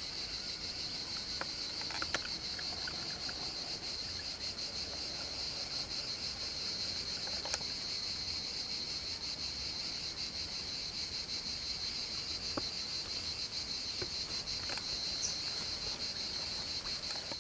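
A steady, high-pitched insect chorus, a fast pulsing shrill that keeps going without a break, with a couple of faint ticks.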